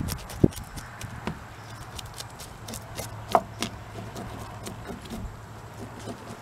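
A spoon scraping the scales off a bass lying on a wooden table: an irregular run of rasping clicks and scrapes, with a louder knock about half a second in and another about three and a half seconds in.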